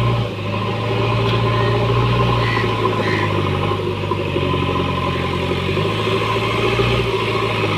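JCB backhoe loader's diesel engine running steadily, its pitch shifting slightly a few times as the load changes.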